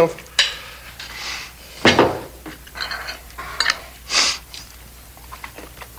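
A spoon clinking and scraping against china dishes as food is served from a bowl onto a plate and eaten: a few short, separate knocks and scrapes, the loudest about two seconds in.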